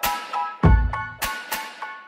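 Background music: a rhythmic track of sharp struck notes, with one heavy deep hit about two-thirds of a second in.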